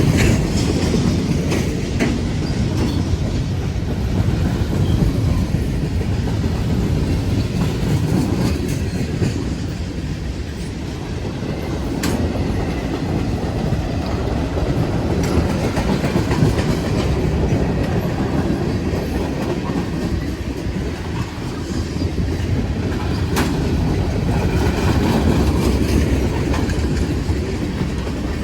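Freight train cars, empty autoracks, rolling past at close range: a steady heavy wheel rumble with clickety-clack over the rail joints. There is a sharp click about twelve seconds in and another later on.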